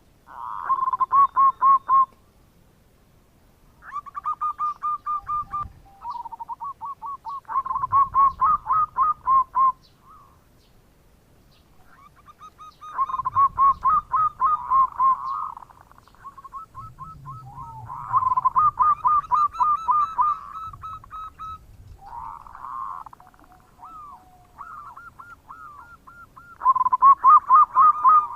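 Zebra dove (perkutut) cooing in its rapid, trilling 'bekur' song: repeated phrases of quick staccato notes, each a couple of seconds long, with short pauses between them.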